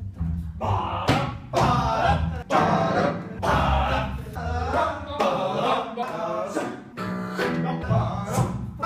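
A small group of men singing a tango arrangement a cappella, their voices mimicking the orchestra's parts in short, clipped rhythmic phrases, over a plucked double bass.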